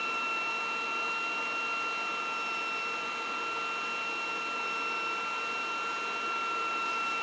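Cooling fans of a Flashforge Adventurer 5M 3D printer running steadily, an even whir with a constant high whine, while the printer waits for its print bed to heat up.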